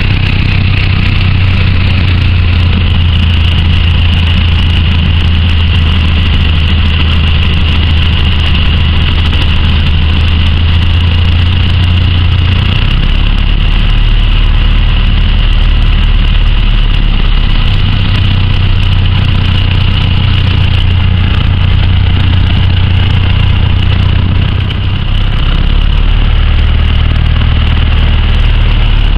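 Piper PA-38 Tomahawk's four-cylinder Lycoming engine and propeller running at low taxi power, heard inside the cabin as a loud, steady low drone. The low note steps down and back up a couple of times.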